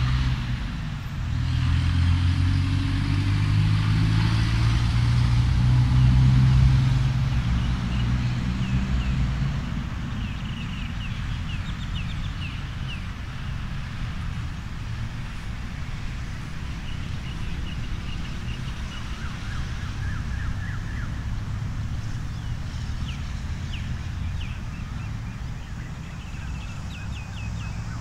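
A road vehicle going past, its low rumble loudest about six seconds in, then a steady low hum of traffic. Runs of short, high, quickly repeated chirps come and go over it.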